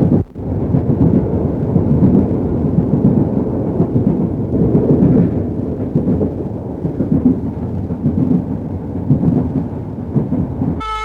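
Loud, rough low rumble with no tune in it, dropping out briefly just after the start.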